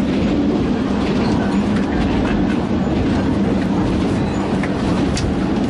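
Passenger train running along the line, heard from inside a sleeper carriage: a steady rumble of wheels and carriage, with a few faint clicks.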